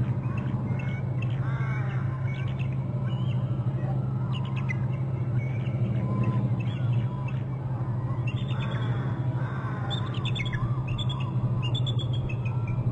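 Bald eagle calling: several bursts of rapid, high chittering notes, the busiest run near the end, over a steady low hum.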